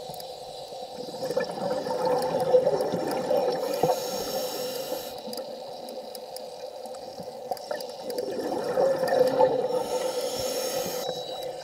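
Underwater sound of a scuba diver breathing: exhaled bubbles rush and gurgle in two surges a few seconds long, each followed by a short hiss, over a steady hum.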